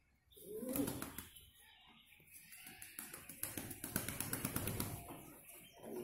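Domestic pigeon cooing in courtship: one bowing coo about half a second in and another near the end. In between come a few seconds of rapid ticking and rustling from the birds' scuffling and wing movement.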